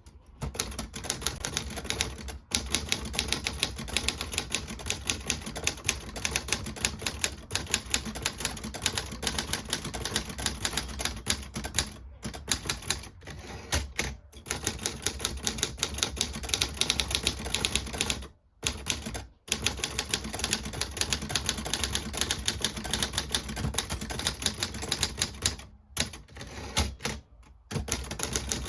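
Steady, rapid typing on a 1957 Halda portable manual typewriter: keys striking several times a second, with a few brief pauses.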